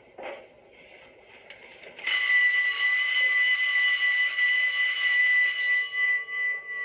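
Electric school bell ringing: it starts suddenly about two seconds in, rings steadily for about four seconds, then fades away. It marks the end of class.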